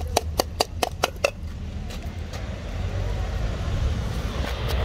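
A metal tin of wet cat food is tapped rapidly to knock the food out: about five sharp, ringing knocks a second that stop a little over a second in. A steady low traffic rumble runs underneath.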